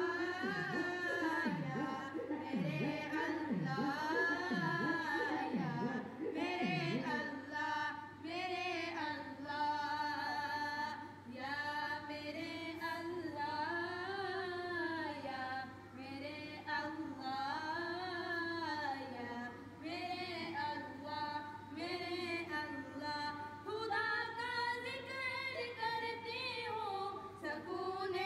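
A woman singing an unaccompanied devotional naat, drawing out long, wavering notes.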